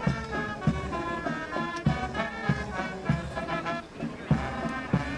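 Brass band music, with horns playing a melody over a steady drum beat a little under two beats a second.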